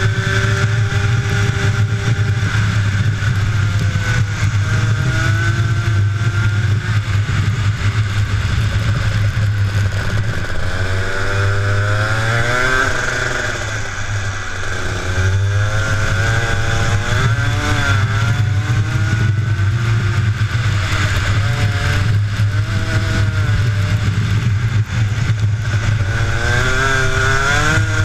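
Two-stroke kart engine heard from the driver's seat, its pitch rising and falling as it accelerates and slows through the corners over a steady low rumble. The revs drop about halfway through for a tight corner, then climb again.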